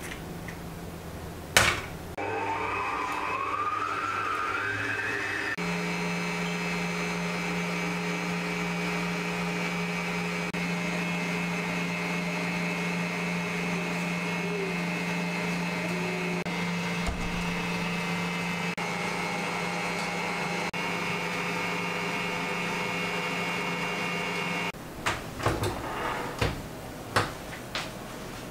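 Eurolux stand mixer switched on with a click, its motor whine rising as it speeds up, then running steadily as the whisk beats eggs and sugar for sponge batter. The motor stops a few seconds before the end, followed by several clicks and knocks as the mixer head is raised.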